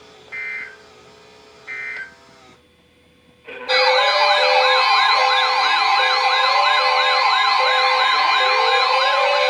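Two EAS SAME end-of-message data bursts, short buzzy digital chirps about a second and a half apart, closing a NOAA Weather Radio severe thunderstorm warning. About a second later a loud electronic siren-style alarm starts, with rapid rising-and-falling wails about three a second layered over steady tones.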